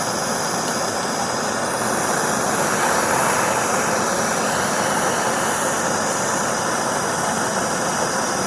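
Handheld gas torch burning with a steady hiss while it heats aluminum solder rod on a thin aluminum can. The hiss swells a little about two to four seconds in.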